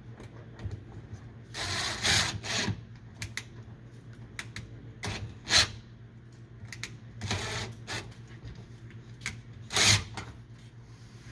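Scraping and clattering of metal shelf brackets and hardware being worked into place, in short bursts with scattered clicks and taps in between.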